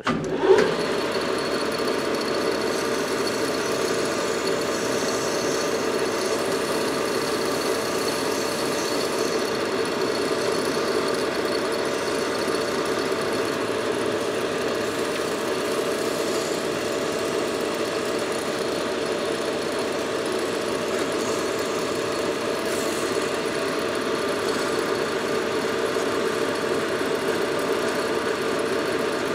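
Metal lathe starting up and then running at a steady speed with an even motor and gear hum, spinning a tractor starter armature while emery tape is held against its copper commutator to polish it.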